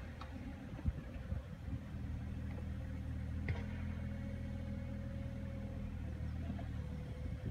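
Mini excavator's diesel engine running steadily at a low, even pitch.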